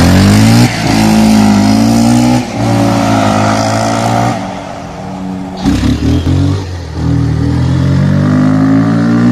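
Bajaj Pulsar motorcycle's single-cylinder engine revving hard and held at high revs, dropping back to idle about halfway, blipped a few times, then climbing again before it cuts off.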